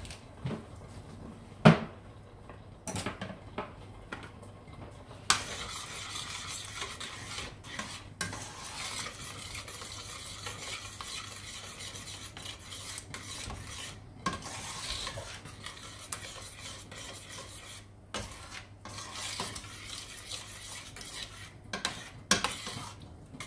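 A spoon stirring pumpkin soup in a stainless steel pot on a gas stove, clinking and scraping against the pot, with one sharp clink about two seconds in. From about five seconds in a steady hiss runs under the stirring.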